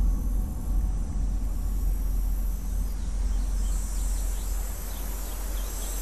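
Outdoor nature ambience: a steady low rumble under a faint high insect buzz, with a few faint bird chirps about halfway through.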